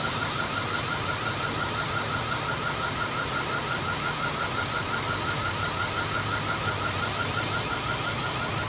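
An electronic alarm sounding a fast, steady run of short chirps, about five a second, over the steady low rumble of idling engines.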